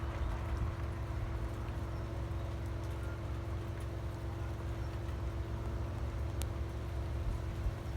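A steady low mechanical hum holding a constant tone, which the uploader takes for the propulsion sound of an unidentified flying object. A faint click about six seconds in.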